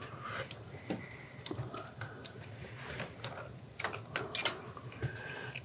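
Small metallic clicks and taps of a screwdriver and a small steel spring against the footpeg mount on a motorcycle's aluminium engine cover, as the spring is pressed into place. The clicks are scattered, with a cluster of louder ones about four seconds in.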